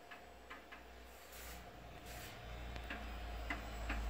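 3.5-inch floppy drive clicking irregularly as its read/write head steps from track to track during a ScanDisk surface scan of the disk. About halfway through, a low hum of the running PC comes up under the clicks.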